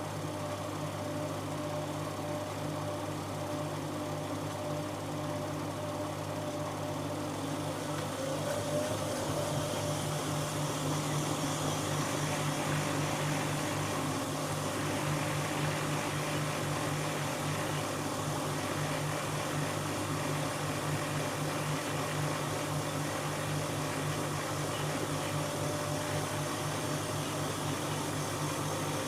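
Siemens Siwamat 7163 iQ washing machine running with a steady motor hum, growing slightly louder and brighter about eight seconds in.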